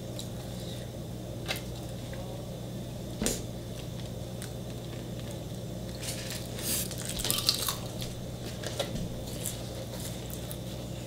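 Close-up eating sounds: bites and chewing of spring rolls and a roasted seaweed snack, with a few sharp clicks and a run of crisp crunching from about six to eight seconds in. A steady low hum runs underneath.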